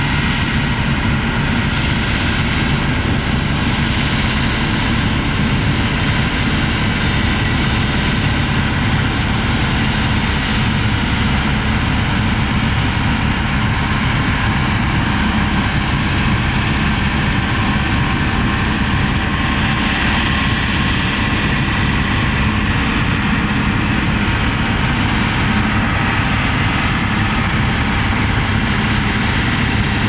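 Claas Lexion 740 Terra Trac combine harvester running steadily under load as it cuts and threshes wheat: a dense, unchanging machine noise of engine and threshing.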